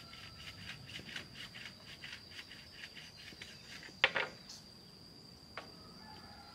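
Insects buzzing with a steady high tone, over a quick rhythmic chirping of about four or five pulses a second that stops after about three and a half seconds. A single sharp knock about four seconds in is the loudest sound, and a lighter click follows about a second and a half later.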